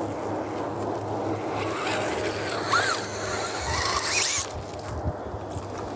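RC rock crawler's electric motor and geared drivetrain whining and grinding as the truck climbs over rocks and dirt, with a couple of short rising squeals around the middle. The driving noise drops away about three-quarters of the way through.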